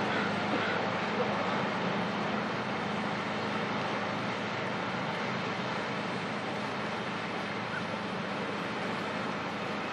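Tugboat engine running steadily, a constant low hum under an even wash of noise.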